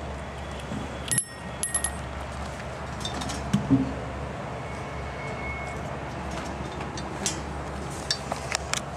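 Scattered metallic clicks and clinks from a chinchilla's wire-mesh cage and metal food bowl as the animal moves about, over a steady background hiss. A sharp ringing clink comes about a second in and again just after, a couple of dull knocks come around the middle, and a quick run of clicks comes near the end.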